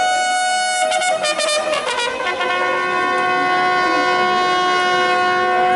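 Bugle call played as the border flags are lowered, sounding long held notes; after a change of note about a second in, two notes are held together through the rest.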